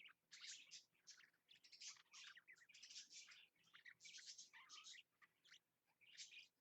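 Budgerigars chattering and warbling in quick, faint bursts of high chirps, with a short lull near the end: budgie courtship chatter during the mating display.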